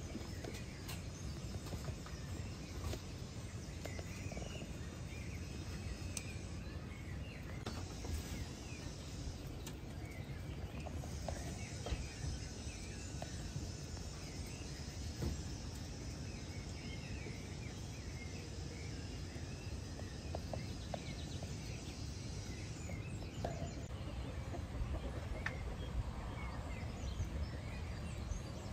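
Birds chirping, many short scattered calls over a steady low background noise.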